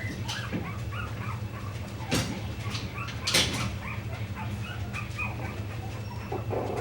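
Coton de Tulear puppies, four weeks old, making many small high squeaks and whimpers, with a couple of sharp knocks about two and three seconds in.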